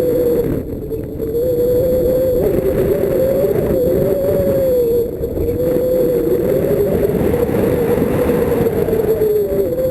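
An engine running steadily, a droning tone whose pitch wavers slightly up and down over a constant low rumble, dipping briefly twice.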